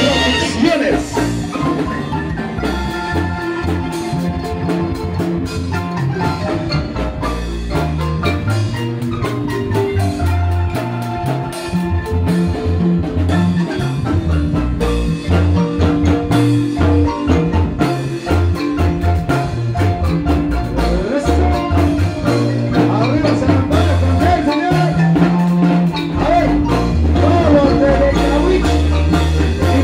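A Guatemalan marimba ensemble playing a large wooden marimba: several players strike the bars with mallets, a quick melody over deep bass notes, without a break.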